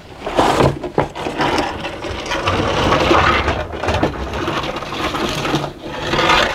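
A long wooden bread peel scraping and knocking against the floor of a wood-fired oven as rolls are slid in to bake, with a sharp knock about a second in.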